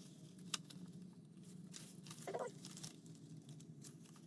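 Paper banknotes being handled and counted by hand: soft rustling with a few sharp flicks of the bills, over a faint steady hum.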